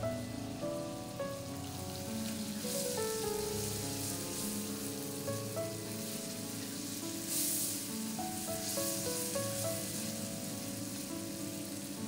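Chopped tomatoes and onions sizzling as they fry in oil in a karahi, stirred with a wooden spoon, the sizzle swelling twice. Background music with a melody plays throughout.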